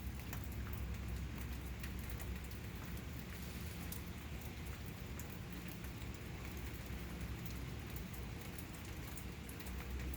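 Steady rain falling outside an open door, with many scattered drops ticking close to the microphone.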